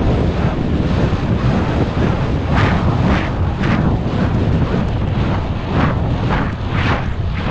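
Wind buffeting the microphone of a rider's helmet camera as a horse gallops across grass. From a few seconds in, a rhythmic pulse about twice a second comes through the wind, in time with the horse's galloping stride.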